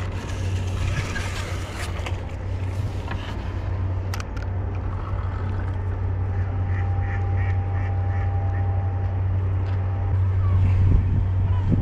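A hooked bream splashing at the surface as it is played toward the landing net in the first few seconds, then a bird calling about six times in quick succession just past the middle, all over a steady low hum.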